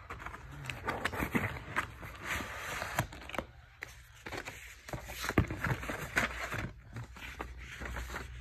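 Cardboard mailer box being handled and torn open along its tear strip: irregular scraping, rustling and sharp crackling tears in bursts.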